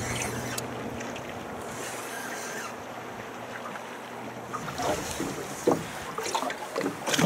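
Water and wind around a small boat with a low steady hum, then a run of scattered knocks from about five seconds in.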